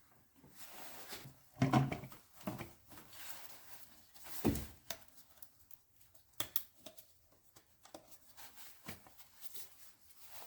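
Intake manifold being worked into place on a car engine by hand: irregular knocks, clicks and scraping of parts against each other, with two louder thumps, one near the start and one about halfway.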